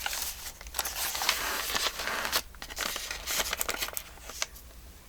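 Paper rustling and crinkling as loose paper ephemera pieces are handled and shuffled, busy at first and thinning out over the last couple of seconds.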